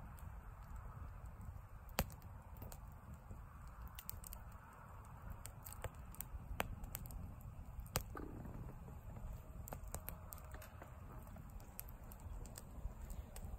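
Wood campfire crackling, with sharp pops scattered irregularly, the loudest about two seconds and eight seconds in, over a low steady rumble.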